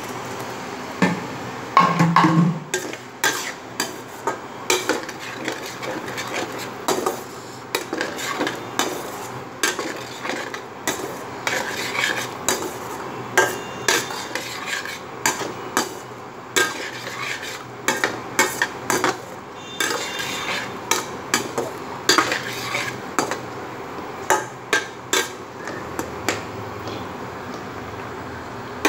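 Flat metal spatula stirring and scraping a watery potato curry in a metal kadai, clinking against the pan about once or twice a second in an uneven rhythm. The water has just gone in and is being mixed into the fried potatoes and spices.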